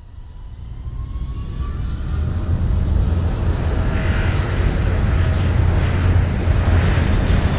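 Airliner engines fading in and building over the first few seconds to a loud, steady running noise, with a faint rising whine in the first two seconds.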